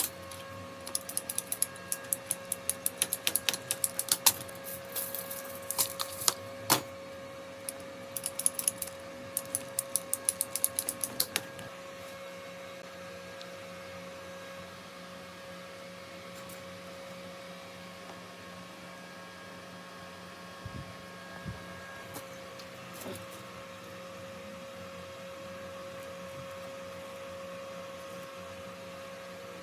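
Quick runs of sharp clicks and taps from hand work on PPR plumbing pipe and fittings, stopping about eleven seconds in, over a steady hum.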